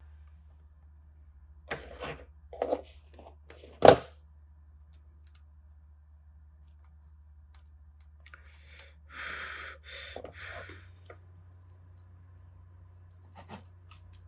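Hands handling a stretched canvas and pressing fairy-light wire onto its back: a few light taps and rubs, one sharp knock about four seconds in, and a rubbing scrape around nine to eleven seconds, over a low steady hum.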